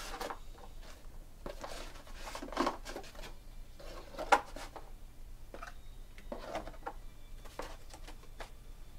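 Scattered soft rustles and light taps of small objects being handled, irregular and a few a second, with one sharp click about four seconds in.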